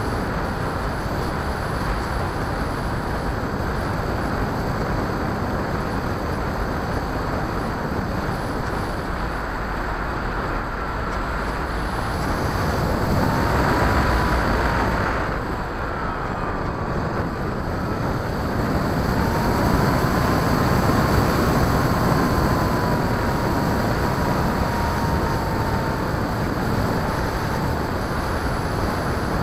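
Onboard sound of an RC airplane in flight: a steady rush of air past the airframe and microphone, with the propeller's thin whine. The whine wavers slightly in pitch and fades in and out. Everything swells louder about halfway through and again a few seconds later.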